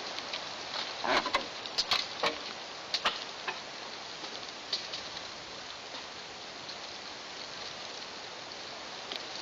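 Steady outdoor hiss picked up by a treetop nest camera's microphone, with a quick cluster of sharp clicks and knocks in the first three seconds or so and one more a little later, then only the even hiss.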